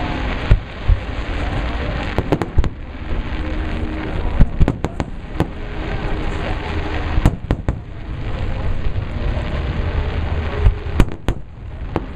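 Fireworks display: aerial shells bursting one after another, a string of sharp bangs at irregular intervals over a continuous rumble, several of them coming close together about four to five seconds in.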